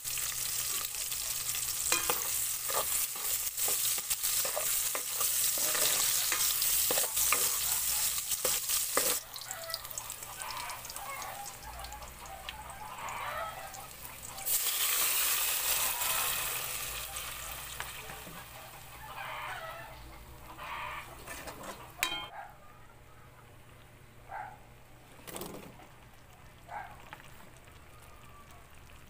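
Sliced onion and garlic sizzling in hot oil in a metal pot as they are sautéed and stirred. There is a second loud surge of sizzling about halfway through. The sizzle then dies down to a faint hiss with a few sharp knocks.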